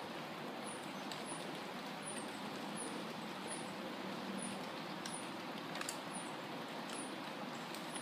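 Mango tree leaves rustling steadily in the wind. A faint high chirp repeats about every three quarters of a second.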